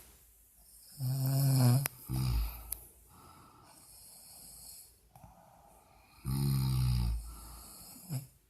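A woman snoring loudly in her sleep: two long snores about five seconds apart, each followed by a shorter snort, with softer breathing between.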